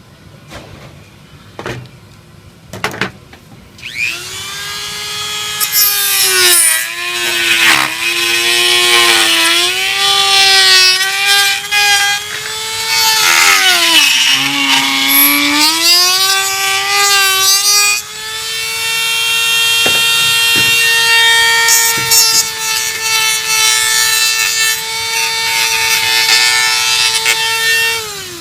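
Dremel rotary tool whining as its bit grinds away the rough edges of a cut-out hole in a casement window frame. It starts about four seconds in, after a few clicks, and its pitch sags and recovers again and again as the bit is pressed into the material. It runs steadily in the second half and stops near the end.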